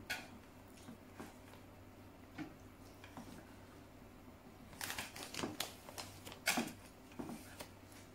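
Crisp crackling and clicking of crunchy food being picked from a bowl by hand and eaten, in scattered small clicks with louder clusters of crunching about five and six and a half seconds in.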